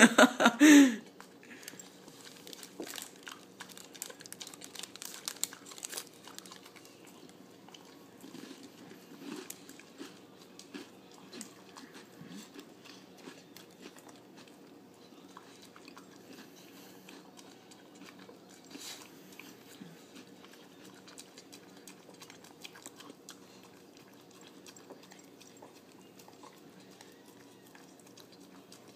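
A dog chewing and licking soft pie off a tiled floor: irregular wet clicks and smacks. A short, louder sound in the first second is the loudest thing.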